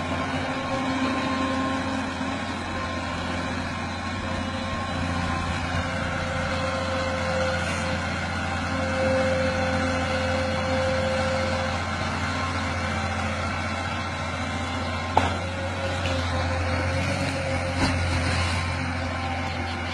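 Excavator's diesel engine running steadily at a constant speed, with a sharp knock about fifteen seconds in and a lighter one near the end.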